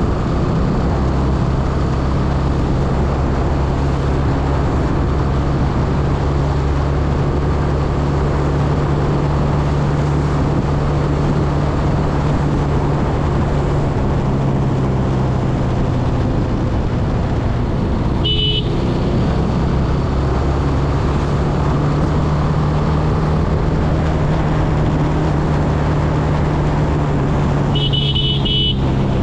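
Motorcycle engine running at a steady cruising speed with constant wind and road noise. A horn beeps briefly about eighteen seconds in and again, a little longer, near the end.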